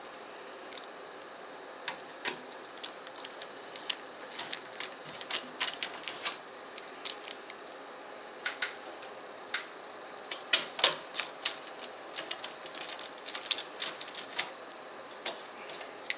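Irregular clicks and taps of a screwdriver and screws as a case fan is screwed into a PC case, coming in clusters, loudest about ten to eleven seconds in.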